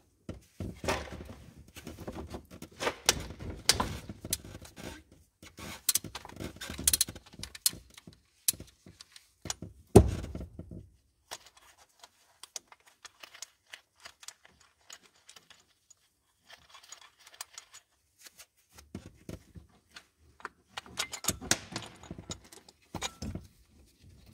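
Metal hand tools working on a microcar engine's timing-belt tensioner bolt: irregular metallic clicks, clinks and scrapes, with a single loud knock about ten seconds in, then quieter handling before more clinking near the end.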